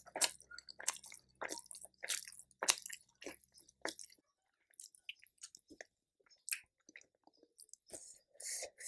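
Close-up mouth sounds of a person chewing food, with regular wet, crunchy chews about twice a second that grow fainter and sparser about four seconds in.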